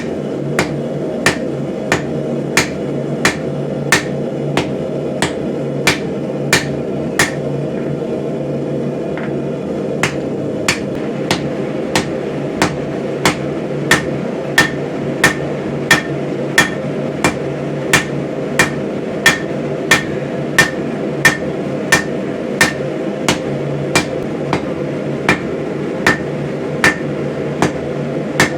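Hammer blows on steel over an anvil while forging an axe head: steady, evenly spaced strikes about one and a half a second, each with a short metallic ring. The strikes pause for a couple of seconds about a third of the way in, then resume. A steady low drone runs underneath.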